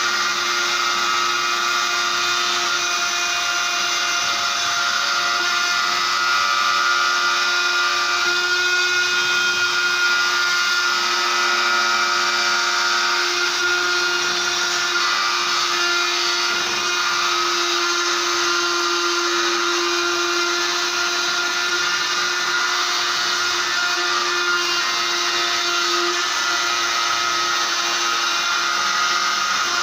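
CNC machine running: a steady whine with several held tones over a hiss, the lowest tone growing stronger around the middle.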